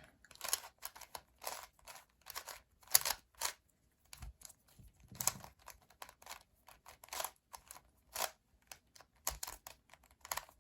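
Plastic barrel-shaped twisty puzzle being turned rapidly by hand during a solve: a quick, irregular run of light clicks and clacks as its layers snap past each other.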